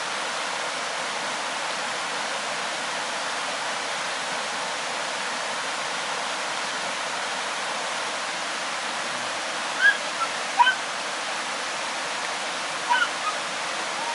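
Steady rushing of a mountain stream, with a few short bird chirps about ten seconds in and again near the end.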